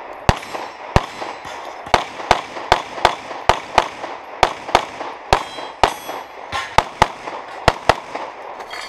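Handgun firing in rapid pairs of shots, about twenty shots in all, with a short break a little past the middle.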